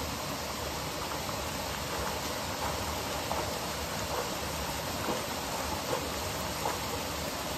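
Waterfall: a steady rush of falling water, with brief splashes over it now and then.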